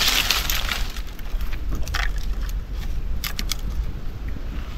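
Dry leaves and twigs crunching and rustling underfoot while walking through leaf litter, with a few sharper snaps about two and three seconds in.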